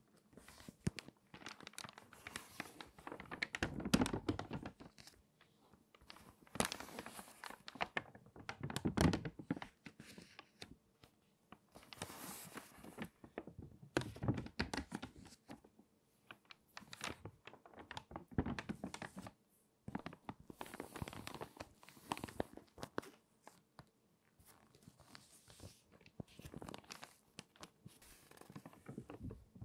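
Stiff, water-damaged magazine pages being turned one after another, each turn a crinkly rustle of paper, some ending in a low thud, coming every two to three seconds.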